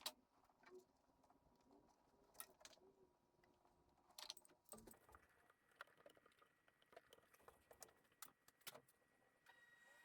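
Near silence, broken by a few faint, scattered clicks and taps.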